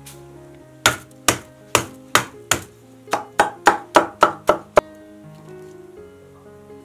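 A Chinese cleaver chopping cucumber on a wooden chopping board: about a dozen sharp chops, slow at first and then quicker, about four a second, stopping about five seconds in. Background music plays underneath.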